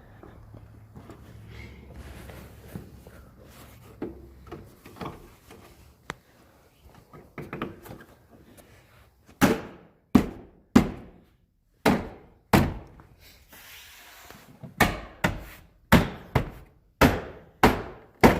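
Light clicks and handling of small parts, then from about nine seconds in a steady run of sharp knocks on the truck's door, about one every two-thirds of a second, each ringing briefly.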